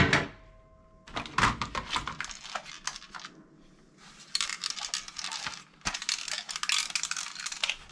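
A loud thud right at the start that dies away quickly, then plastic toy guns clattering and clicking against each other as they are handled in a box, in two busy stretches with a short lull between.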